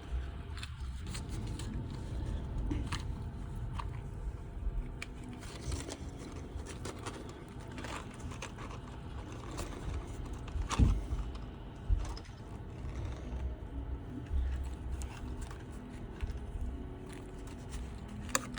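Small clicks, scrapes and crunches of 3D-printed plastic being handled as support material is picked and snapped off an articulated print, with a sharper snap about eleven seconds in and another a second later.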